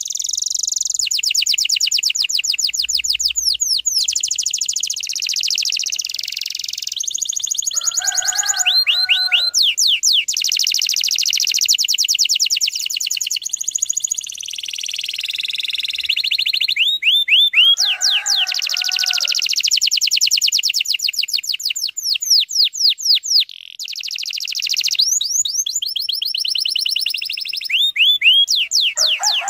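Domestic canary singing continuously: long, high-pitched runs of very fast, closely spaced trills that switch from one trill type to the next every second or two. Twice, about eight and eighteen seconds in, a lower, rougher call sounds under the trills.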